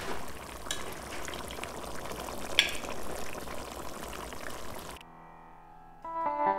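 Thick chicken curry bubbling and spitting in a pot, a steady crackle with a few sharp pops, the loudest about two and a half seconds in. Near the end it gives way to music.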